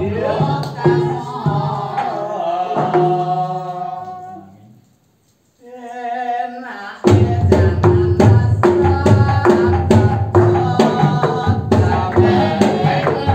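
Javanese langgam music played on the cave's stalactites and stalagmites struck as a stone gamelan, with a singer. The singing fades out about a third of the way in, and after a brief silence a voice holds the opening notes of the next song; the struck-stone percussion comes in with a steady beat about halfway.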